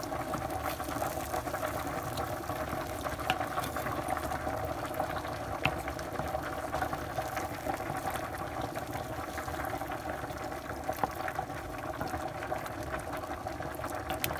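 Pot of spaghetti boiling on the stove: a steady bubbling hiss, with faint scrapes and light knocks of a wooden spoon stirring baked feta and cherry tomatoes in a baking dish.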